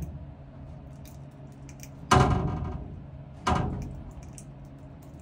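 Two sudden clunks of metal steering-gear parts being knocked or set down, about a second and a half apart, each with a short ringing fade.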